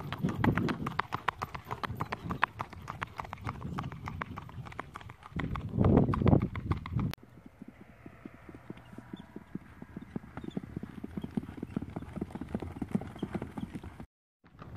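Hooves of a singlefooting mare beating out a quick, even four-beat rhythm on pavement, with a louder low rumble briefly at the start and again about six seconds in. About seven seconds in, the sound cuts abruptly to softer, fainter hoofbeats on loose dirt.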